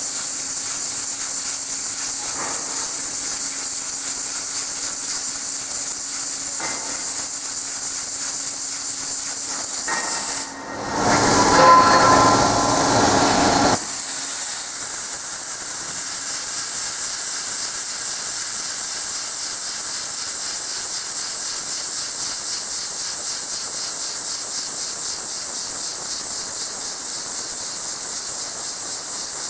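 MUBEA CNC plate drilling machine running with a steady high hiss and a low hum. About ten seconds in, a louder rushing stretch with a whine of several tones sets in and lasts roughly three seconds before the steady hiss returns.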